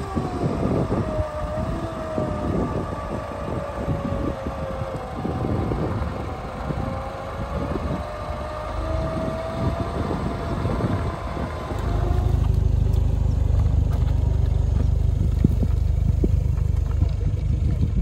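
Off-road vehicle driving over rough ground, its engine running with a wavering whine and many knocks and rattles. About two-thirds through, a loud, deep, steady rumble takes over.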